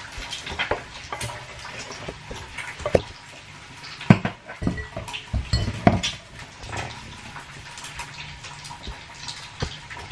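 Scattered clinks and knocks of plates and cutlery being handled, with a heavier knock about four seconds in, over a steady hiss of steak sizzling on an electric contact grill.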